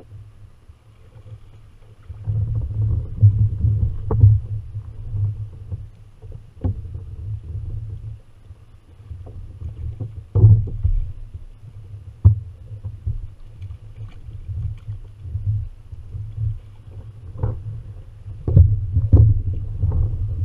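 Low rumbling and handling noise on a Hobie Revo fishing kayak, starting about two seconds in, with scattered sharp knocks and bumps, most of them near the end, while a hooked bream is fought to the kayak and netted.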